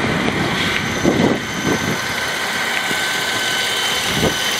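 Mercedes-Benz S450's 4.6-litre V8 idling under the open hood, a steady engine hum with constant high-pitched whines over it.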